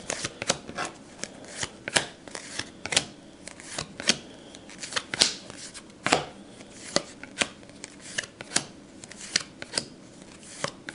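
Stack of glossy baseball trading cards handled and flipped through, one card slid off the stack after another: a run of short, crisp card flicks and slaps, irregular, about two or three a second.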